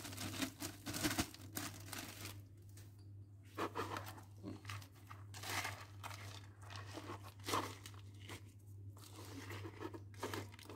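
Plastic bag crinkling as crumbled dog dental chews are tipped out of it into a plastic bowl, then a spoon stirring and scraping through the crumbly mixture: irregular rustles, crunches and scrapes over a faint steady low hum.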